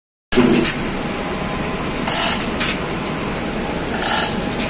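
Steady, loud industrial machinery noise with a few short metallic rattles, about two seconds in and again near the end, from the hand chain of a manual chain hoist lifting a rotary feeder. The sound starts after a brief dropout.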